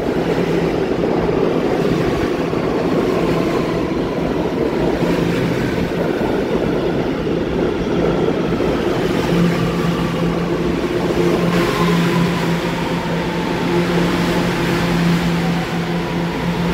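New York City subway train pulling into a station, its wheels rumbling steadily on the rails. A motor whine falls slowly in pitch as the train slows, and a low steady hum grows stronger about halfway through.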